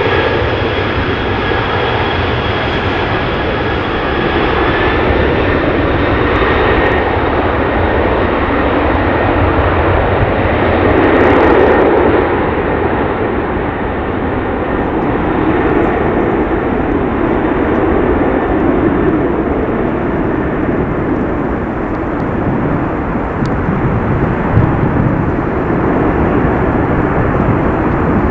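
Boeing 747's four turbofan engines running as the jumbo jet rolls away along the runway: a steady jet roar with a high fan whine that fades out within the first eight seconds or so. The roar is loudest about eleven seconds in, then grows duller as the aircraft draws away.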